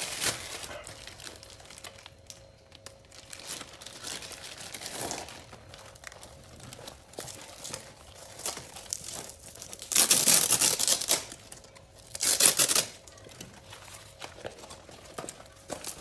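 Plastic packaging crinkling and being torn open as a motorcycle seat cover is unboxed. There are scattered crackles throughout, and two loud ripping bursts about two-thirds of the way through.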